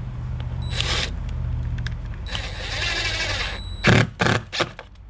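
A screw being driven into a door hinge, its stripped hole packed with toothpicks so that it bites: two stretches of scraping, then three sharp knocks close together near the end.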